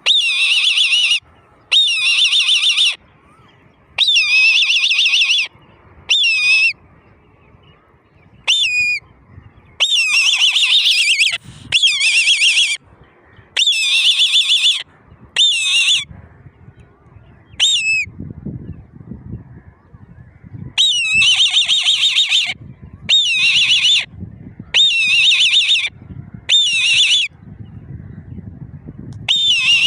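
Older eagle chicks calling: a long run of high, quavering calls, each lasting about a second with short gaps between, and now and then a brief note that flicks upward.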